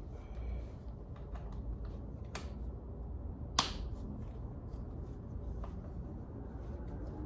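Scattered light clicks and taps of hand tools on metal while brake pads are being taken off a car, with one sharp click about three and a half seconds in, over a low steady rumble.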